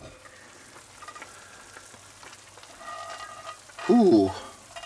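Stew simmering and bubbling quietly in an open cast-iron Dutch oven, with a short, loud vocal exclamation about four seconds in.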